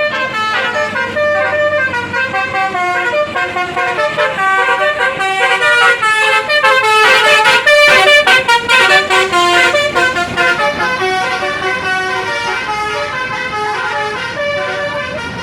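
Bus telolet basuri musical horn playing a fast melody of short stepped notes, loudest around the middle.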